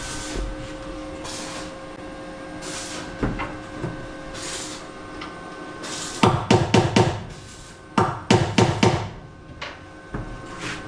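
Hammer blows in two quick runs of about four or five knocks a second, one about six seconds in and another about two seconds later, after several soft rasping strokes roughly a second and a half apart.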